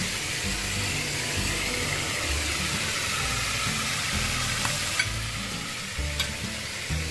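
Stuffed squid frying in hot oil in a pan, a steady sizzle, with a couple of light clicks near the end.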